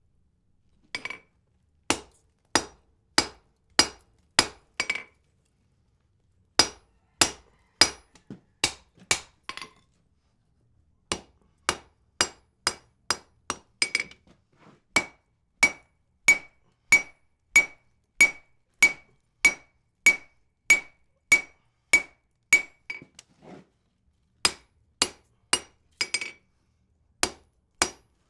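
Hand hammer striking hot wrought iron on an anvil: steady blows, nearly two a second, in runs with a few short pauses, many of them with a clear ringing note.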